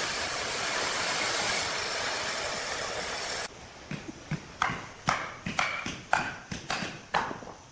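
Sawmill machinery: a steady rushing noise that cuts off abruptly about three and a half seconds in. It is followed by a run of sharp knocks with a brief metallic ring, about two a second.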